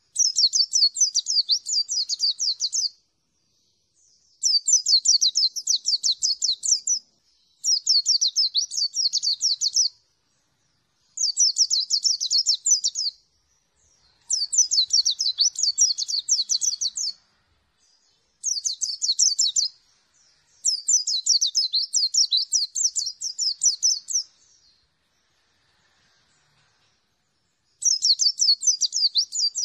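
Caged white-eye (pleci) singing about eight bouts of rapid, high trilling song, each two to three seconds long, with short pauses between them.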